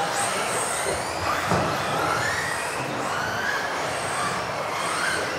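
Several electric RC offroad buggies racing, their motors whining and rising and falling in pitch over and over as they speed up and brake through the corners.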